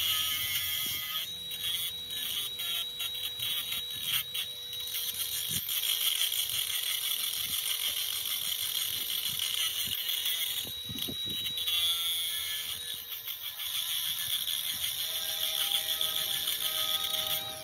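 Cordless angle grinder grinding into a steel excavator track link: a high steady whine over a harsh grinding hiss, the whine dropping out briefly several times as the disc bites.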